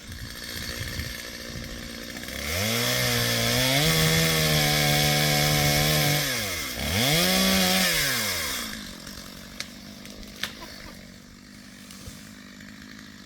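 Two-stroke chainsaw revving up, held at high speed for about four seconds, then dropping back and revving again in a shorter burst before falling away.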